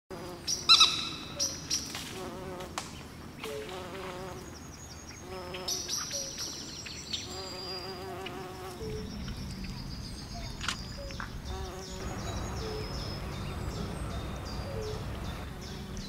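Pond-side ambience: insects buzzing and small birds chirping in short repeated calls. A low steady rumble joins about halfway through.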